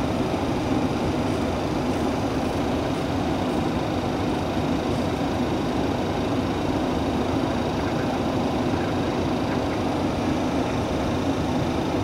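Steady rushing noise in a Boeing 737's flight deck on approach: airflow over the nose and windscreen, with engine and air-conditioning noise beneath, and a faint thin high whine.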